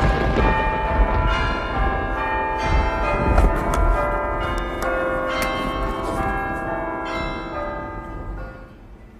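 Bells ringing in many overlapping strikes over a deep rumble, the ringing dying away near the end.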